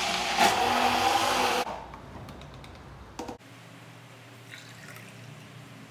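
Hand-held immersion blender (stick mixer) running in a plastic cup of water with ginger, cinnamon and honey, a steady motor whine over the churning liquid. It cuts off about one and a half seconds in, leaving only quiet room sound.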